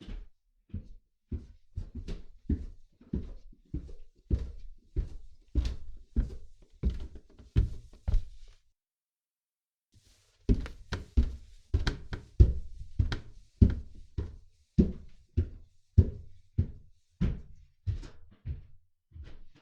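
Footsteps on an indoor staircase, one knocking step about every 0.6 seconds at an even walking pace. The steps stop for about two seconds near the middle, then carry on at the same pace.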